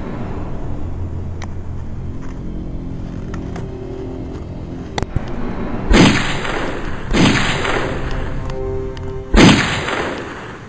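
Dramatic trailer-style music over a low steady drone, then three loud booms in the second half, each dying away over a moment.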